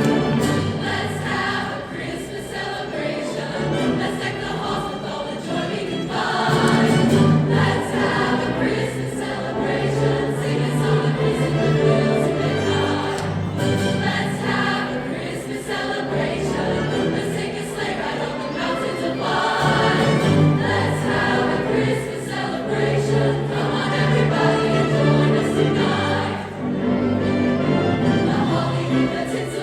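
A choir singing a piece of music.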